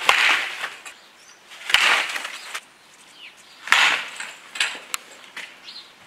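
Wooden baseball bat hitting baseballs off a batting tee: three sharp cracks, about two seconds apart, each trailing off over about half a second.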